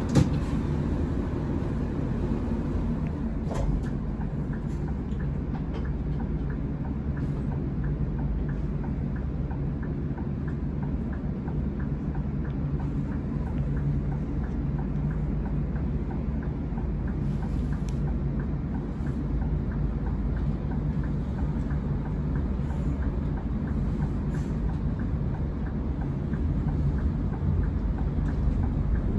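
Scania K410EB coach's rear-mounted 13-litre straight-six diesel idling steadily, heard from inside the passenger cabin while the coach stands in traffic. Near the end the engine note rises as the coach begins to pull away.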